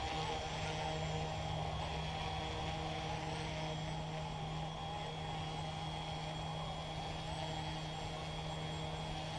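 Yu Xiang UH-1 Huey RC helicopter's motor and rotors running with a steady whirring hum at an even pitch, while it comes in to land.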